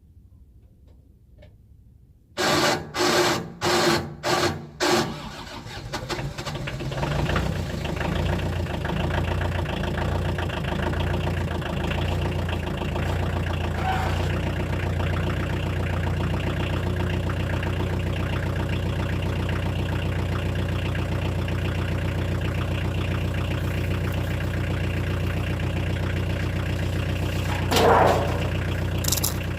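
Daedong 3502 tractor's diesel engine cold-starting: after a couple of seconds of quiet it gives five loud bursts as it cranks and fires, catches about five seconds in, and settles into a steady idle. A short louder sound comes near the end.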